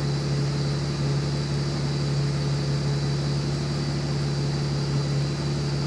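2002 BMW 330Ci's 3.0-litre inline-six idling steadily as it warms up, with the vacuum leaks behind its random misfire now repaired.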